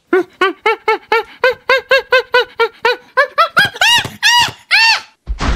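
Chimpanzee hooting: a quick run of short calls, each rising and falling in pitch, about four a second, that climb into a few higher, longer calls near the end. A brief low thud comes right at the end.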